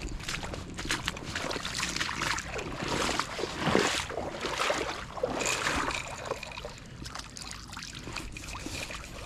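Water lapping and trickling at the shoreline, with many small crackly clicks, louder through the middle of the stretch.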